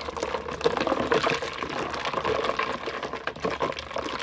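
Spoon stirring carambola juice with ice in a plastic pitcher: liquid sloshing, with irregular small knocks and clinks from the ice and spoon.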